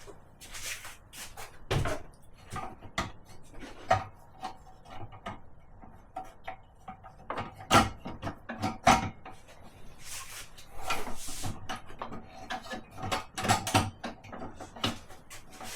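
Table saw parts being handled and clipped into place during assembly: a run of irregular clicks, knocks and rattles, with two louder knocks about a second apart near the middle.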